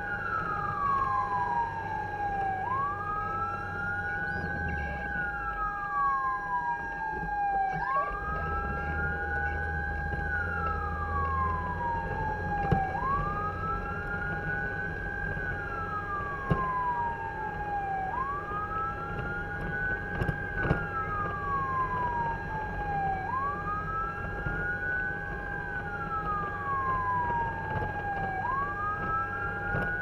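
Fire truck siren wailing: a slow, repeating rise and fall about every five seconds, over a steady held tone. The truck's engine runs underneath.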